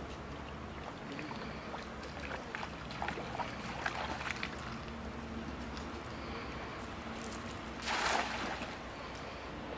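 A person wading through shallow pond water, with small sloshing splashes, then a cast net thrown out and landing on the water in one brief, loud splash about eight seconds in.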